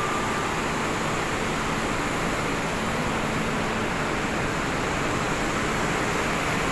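Steady ventilation hum on an underground metro platform while a train stands at it with its doors open, an even rushing noise with no distinct events.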